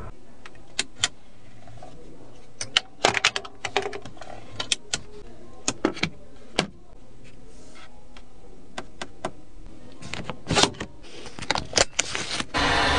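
Scattered sharp clicks and taps of hands working a Hongqi LS7's interior fittings: buttons and trim, a phone being set into the tray under the dashboard, and the seatbelt buckle near the end. A steady rushing noise starts just before the end.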